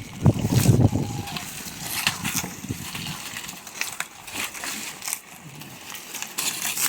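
Irregular crunching and crackling of dry plant material, loudest in the first second.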